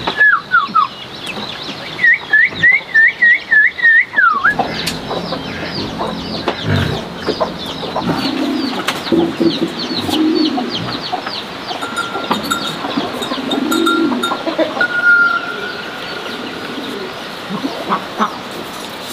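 Farmyard poultry calling: a loud run of about seven short, evenly spaced calls in the first few seconds, then many quick, high peeps.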